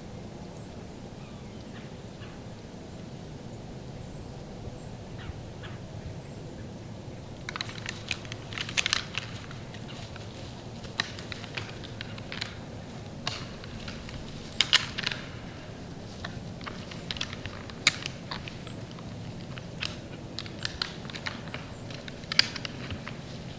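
Two young white-tailed bucks fighting: antlers clashing and rattling in irregular sharp clacks, a few faint ticks at first and then frequent clatters from about a third of the way in, over steady background noise.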